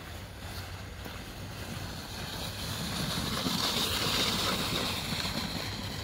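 Snowboard sliding over packed snow: a steady scraping hiss that swells to its loudest about four seconds in, with wind noise on the microphone.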